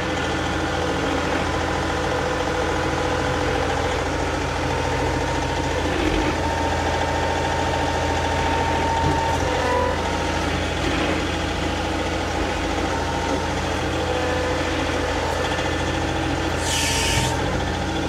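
John Deere 2038R compact tractor's three-cylinder diesel engine running steadily, with a short hiss near the end.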